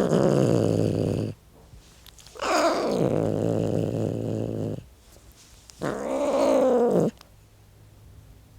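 An angry cat yowling three times: a call of just over a second, a longer one of about two and a half seconds, then one of just over a second.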